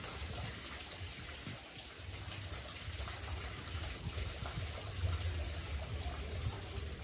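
Steady trickle of running water, with a low rumble underneath.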